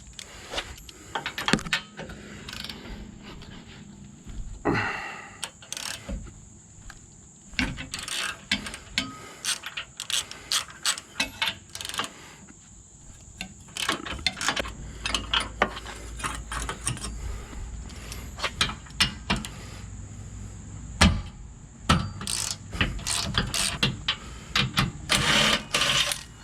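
Hand socket ratchet clicking in repeated bursts of rapid strokes as a 21 mm socket runs down the rear bumper's mounting bolts, with a few sharper metal clinks between the bursts.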